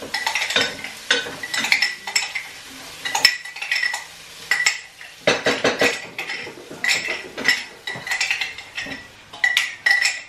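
A metal spoon scraping and clinking against a container again and again, several quick strokes a second with a brief ring on many, as herb paste is spooned out into the kibbeh dough.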